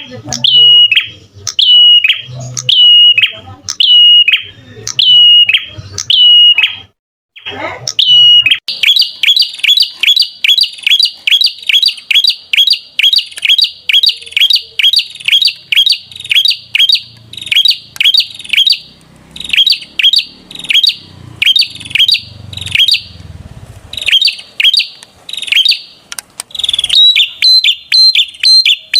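Perenjak (prinia) singing: loud, sharp high chirps repeated about once a second, then from about eight seconds in a fast run of about three notes a second, broken by a few short pauses.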